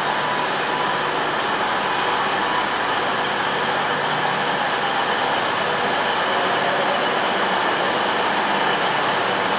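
Covered mainline railway platform ambience: a steady hum and hiss from standing trains and the station, with a few faint steady tones and no distinct events.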